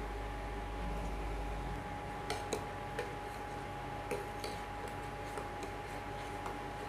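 Steel ladle stirring boiling dal in a stainless steel pot, with scattered light clinks of the ladle against the pot from about two seconds in. Under it runs a steady hum with a faint high tone.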